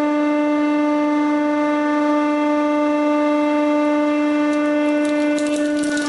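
Hydraulic press running with a loud, steady, high hum as the ram descends. Near the end there are a few faint clicks as the ram presses the crushed remains of a Nokia 3310 phone.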